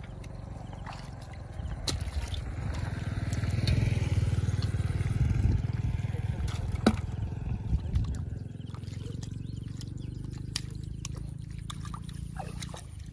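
Muddy water sloshing and splashing, with scattered small knocks and a steady low rumble that is loudest from about two to eight seconds in.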